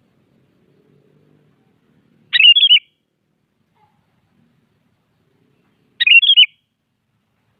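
Sooty-headed bulbul (kutilang) singing: two short phrases of a few quick notes each, about two seconds in and again about six seconds in.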